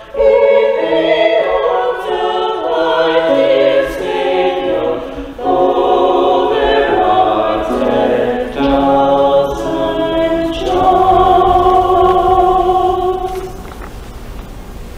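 Small mixed choir of men and women singing together in held, sustained phrases, ending on a long chord about eleven seconds in that dies away near the end.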